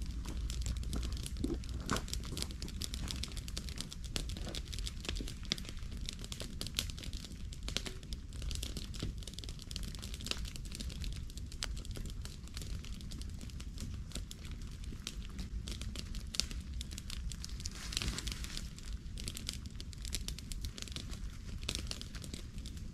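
Dry crackling with many sharp snaps from a wood campfire, mixed with rustling in dry leaf litter close by, over a steady low rumble.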